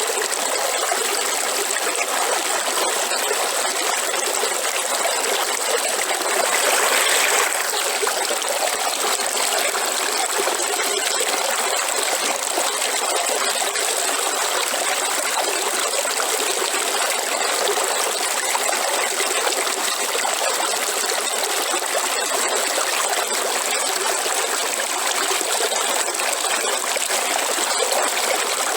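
River water running and trickling over stones, a steady rushing and babbling, with a brief slight swell about seven seconds in.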